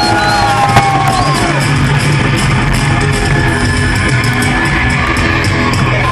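Live rock band playing loudly through a concert PA, heard from within the crowd: steady drums and electric guitar, with gliding high notes in the first second or two.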